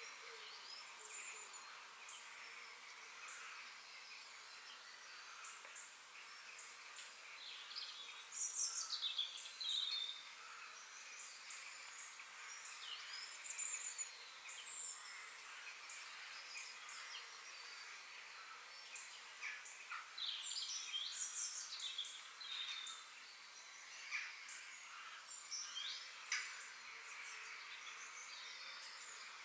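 Forest ambience: several birds chirping and calling in short, scattered phrases, busiest in clusters partway through, over a steady faint background hum.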